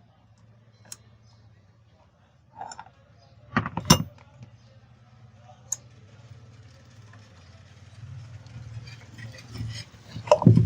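Metal clinks and knocks of ceiling-fan parts and tools being handled, with a loud cluster of knocks about four seconds in and more near the end, over a low steady hum.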